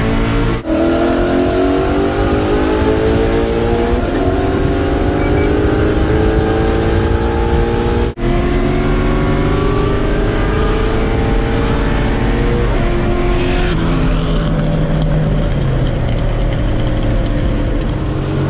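Bolt-on Ford Mustang V8 with long-tube headers, cold air intake and E85 tune, heard from inside the cabin at full throttle: the engine climbs steadily in pitch, drops at an upshift and climbs again. The pulls are spliced, with abrupt cuts about half a second in and about eight seconds in. Near the end the revs fall away as the throttle is lifted.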